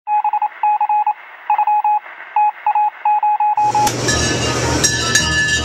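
Morse-code-style beeping on one steady pitch, in short and long pulses, thin and narrow as if heard over a radio. About three and a half seconds in, it stops and a loud steady hum and hiss takes over, the running of a walk-in cooler's refrigeration, with a few clinks.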